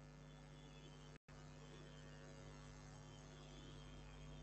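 Near silence: a faint steady electrical hum, with a brief total dropout of the sound about a second in.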